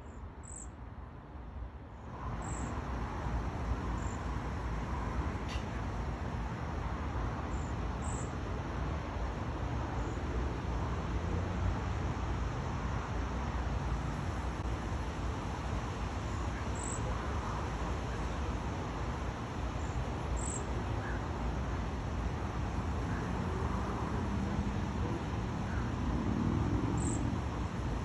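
Cedar waxwing giving brief, very high, thin calls, about ten scattered through, over a steady low rumbling background noise that grows louder about two seconds in.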